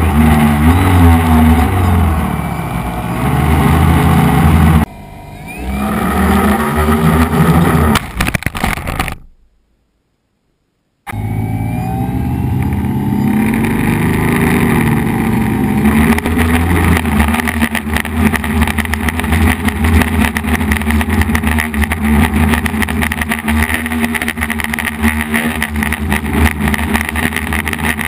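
Electric motors and propellers of an F450 quadcopter buzzing in flight, the pitch rising and falling with the throttle. The sound cuts out completely about nine seconds in and returns about two seconds later.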